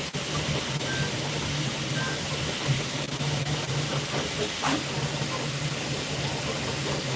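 Steady machine hum with an even hiss over it, with two short faint beeps about a second apart.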